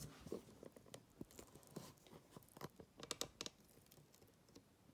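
Faint handling noise of small metal padlock parts and tools being moved on a work surface: scattered light clicks and rustles, with a quick run of sharp clicks about three seconds in.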